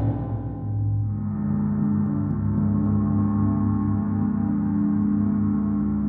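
Ambient soundtrack music: dense sustained ringing tones over a deep drone, with a stronger tone swelling in about a second in and then holding steady.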